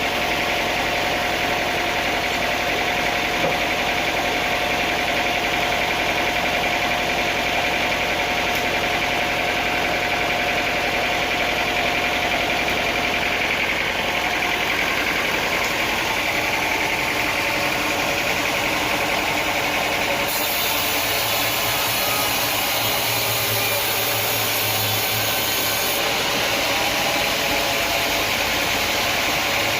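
Sawmill machinery running steadily: a continuous engine-like hum with a constant whine in the first half that fades out midway.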